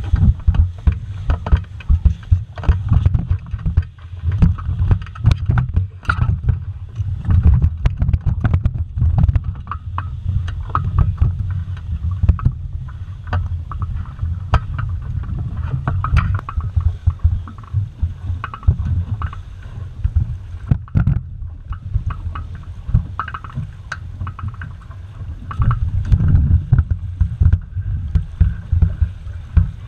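Wind rumbling and buffeting on the microphone of a sailing dinghy under way, with water splashing against the hull and frequent sharp knocks and clicks.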